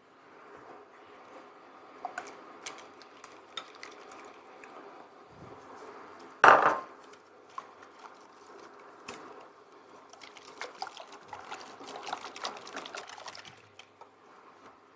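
Pancake batter being made in bowls: liquid pouring and utensils clinking and scraping against the bowls. There is one loud knock about six and a half seconds in, and a busy run of small clicks near the end.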